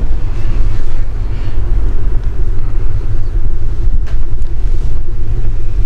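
Steady low rumble, with a faint click about four seconds in.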